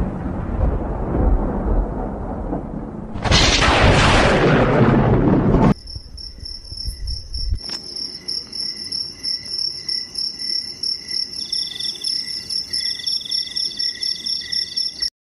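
Thunder rumbling, with a louder crack and roll about three seconds in that stops suddenly at about six seconds; then crickets chirping in a rapid, even pulse, with a second, higher insect trill joining about halfway through the crickets.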